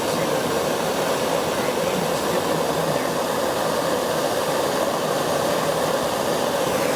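Gas torch burning with a steady roar, its flame heating a metal gas tank for soldering.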